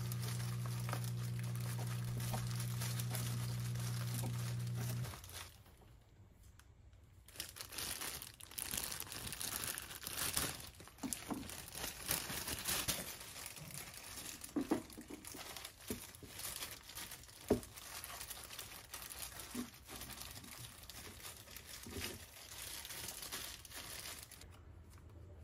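Clear disposable plastic gloves crinkling and rustling in irregular bursts as gloved hands roll rice into fried tofu skins. A steady low hum runs for about the first five seconds and then stops.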